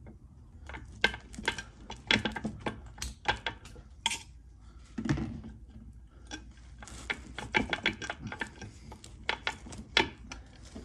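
Steel gears and parts of a 1953 Dodge three-speed transmission clinking and scraping against each other and the case as the gear set is worked into line by hand: irregular metallic clicks and clanks, a few sharper knocks among them.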